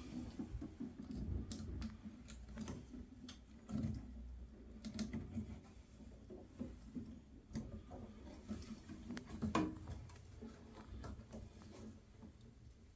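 Scattered small clicks and knocks of metal and plastic boiler parts being handled and fitted into place, with a few louder knocks about four seconds in and again near ten seconds.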